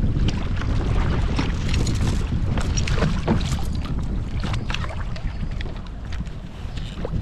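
Wind buffeting the camera microphone in a steady low rumble, with water slapping around the kayak. Scattered light clicks and clinks come from fishing gear and a short length of chain being handled.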